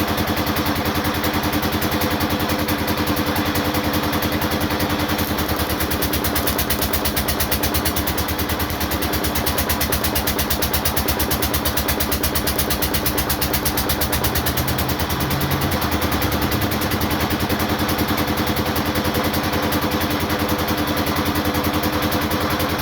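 Welding machine running steadily: a dense, even, fast-pulsing buzz with a few steady low tones that waver slightly partway through.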